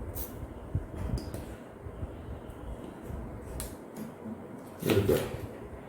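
Faint scraping and light ticks of a blade cutting the double-sided tape that holds the LCD panel down, with a louder short scrape about five seconds in.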